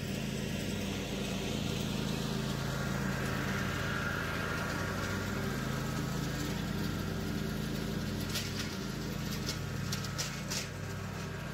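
Toro TimeCutter zero-turn mower's engine running steadily as it tows an Agri-Fab plug aerator across the lawn, with a few sharp clicks near the end.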